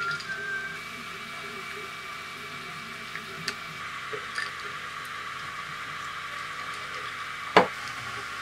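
Highball glass with ice and lemon fizzing softly, with a few faint ticks and one sharp knock about seven and a half seconds in as the glass meets the stainless steel counter. A brief whistled note sounds right at the start.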